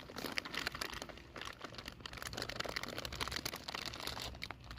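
Rustling and scattered light clicks of bird and squirrel food being handled and dropped into a small wooden feeding dish.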